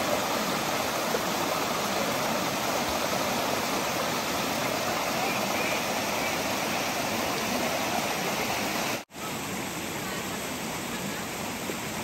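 Water of a waterfall cascading down sloping rock slabs in a steady rushing hiss. It cuts out for an instant about nine seconds in, then goes on a little quieter.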